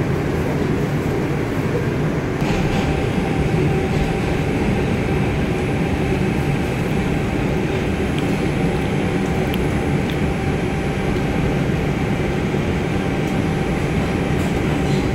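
Interior of an R142 subway car running through the tunnel: a steady rumble of wheels on rail, with a faint steady hum under it. The rumble grows a little louder about two and a half seconds in.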